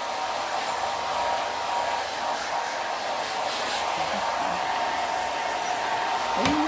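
Handheld hair dryer blowing steadily: a constant rushing airflow with a thin steady whine, drying a corgi's coat. A short sharp click sounds near the end.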